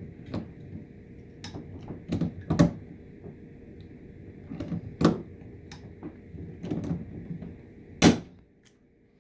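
A series of irregular sharp clicks and knocks, a few seconds apart, the loudest about two and a half, five and eight seconds in.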